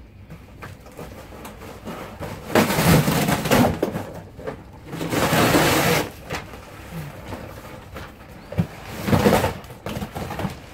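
Rustling and scuffling of things being handled and shifted by hand, in three loud spells of about a second each, with a few light knocks between them.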